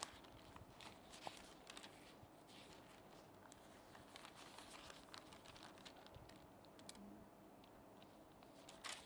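Near silence: quiet room tone with a few faint scattered clicks and rustles, and one slightly louder click near the end.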